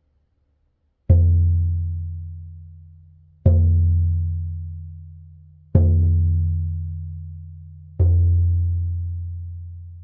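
Hand-held shamanic frame drum struck slowly with a padded beater: four deep strokes about two seconds apart, the first about a second in, each ringing out and fading slowly before the next.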